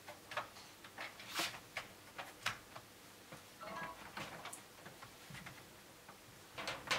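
Scattered light clicks and taps, irregular and a few a second, from hands handling cables and gear on a desk.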